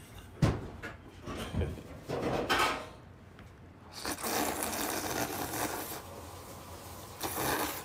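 Udon noodles being slurped from a bowl: a long hissing slurp about four seconds in and a shorter one near the end, with a thump about half a second in.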